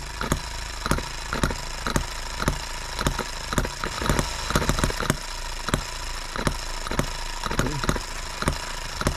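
H73 brass model gas engine running steadily, with sharp pops about twice a second over a steady hum.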